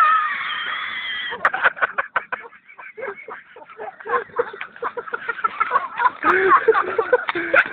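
A rooster crowing: one held call lasting about a second and a half, followed by a quick run of clucks and more squawking calls.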